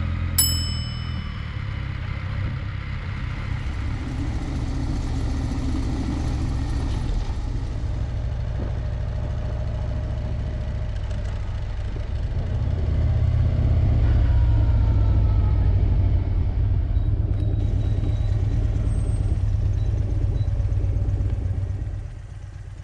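Motorcycle engine rumbling steadily while riding slowly, growing louder about halfway through and falling away just before the end. Near the start, a short bright click with a ringing ding.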